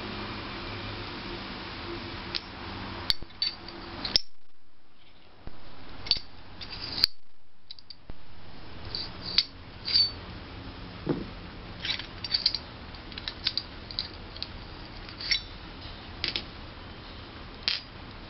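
Medium-carbon steel dies of a blacksmith's guillotine tool being picked up and set down on the tool's steel body, giving scattered sharp metal clinks and knocks.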